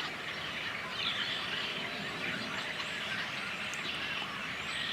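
Scattered faint bird chirps over a steady outdoor background hiss.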